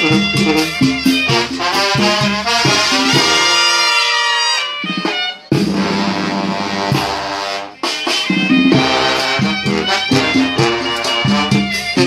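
Live Mexican banda brass band playing, with trombones and trumpets carrying the tune over a steady beat. About three seconds in the horns slide downward together, the band breaks off for a moment just past five seconds, then comes straight back in.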